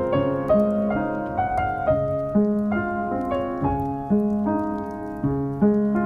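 Background piano music: a gentle melody of notes struck about every half second.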